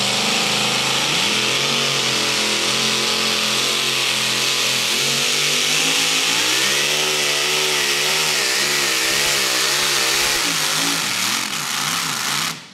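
Supercharged engine of a modified two-wheel-drive pulling truck at full throttle, dragging the weight sled. It climbs in pitch about a second in, then its pitch swings rapidly up and down through the middle of the pull, sags near the end and cuts off suddenly.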